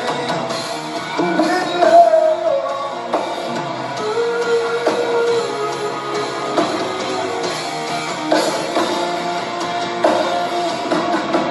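Rock music with a singing voice and guitar, held sung notes over a dense band mix.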